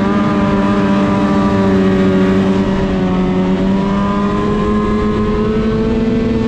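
Arctic Cat M8 snowmobile's two-stroke twin engine running under way at a steady cruising speed, its pitch rising slightly about halfway through.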